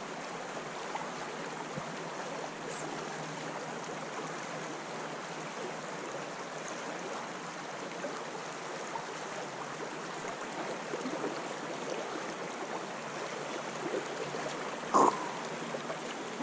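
Steady rush of a shallow trout stream flowing, with one brief louder sound near the end.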